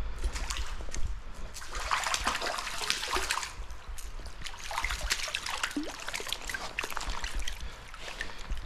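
Creek water splashing and trickling in irregular bursts, busiest from about two seconds in.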